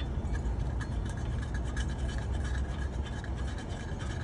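Light metallic scraping and ticking of Loctite-coated hub bolts being handled and threaded in by hand, over a steady low background rumble.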